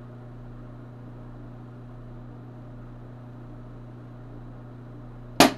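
A steady low electrical hum, then about five and a half seconds in a single sharp, loud bang as a small capacitor bursts under overvoltage.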